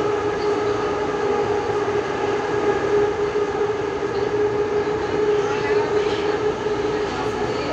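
Running noise inside an 81-71 metro car travelling through a tunnel: a steady rumble and rush with a constant whine from the traction drive, easing slightly near the end.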